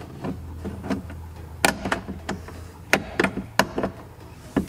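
Plastic trim tool and window glass clicking and knocking against the rear door's window clip and door frame as the clip is pushed down to release the glass. About five sharp clicks, starting a little over a second and a half in, over a faint low hum.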